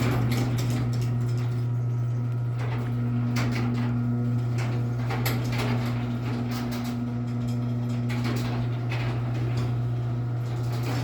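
LiftMaster 8165 chain-drive garage door opener running a sectional door through its travel. The motor hums steadily, with chain clatter and door rattles over it.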